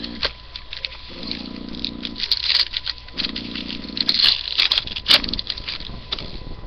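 Crinkling and tearing of plastic wrapping as a retail box of trading-card packs is opened, with irregular crackles and sharp clicks. A low steady buzz comes and goes three times, each about a second long.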